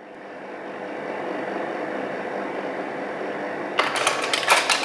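A steady mechanical hum fades in, then about four seconds in a quick run of sharp mechanical clicks, roughly half a dozen in a second.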